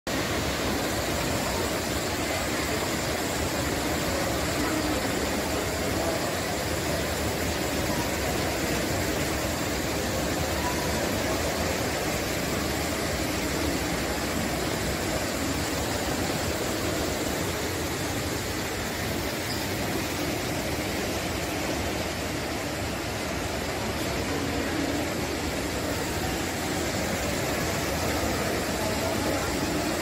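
Steady rush of water from a tall indoor waterfall, a sheet of water pouring down a wall into a pool.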